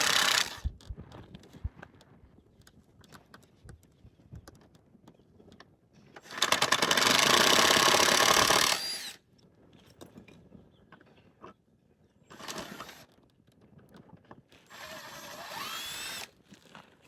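Power saw cutting wood, with fast, even strokes. It runs briefly at the start, then for about two and a half seconds in the middle, and comes on twice more near the end, shorter and quieter, the last time with a rising whine.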